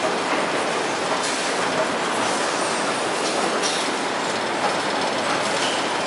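Carton packaging line and palletizer running: a steady clattering rattle of roller and chain conveyors, with a few scattered sharp clicks.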